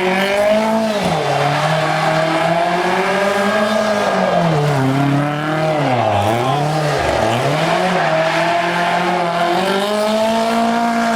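Lancia 037 rally car's supercharged four-cylinder engine revving hard, its pitch climbing and falling again and again through gear changes and throttle lifts. There are sharp drops about a second in and twice more around six to seven seconds in.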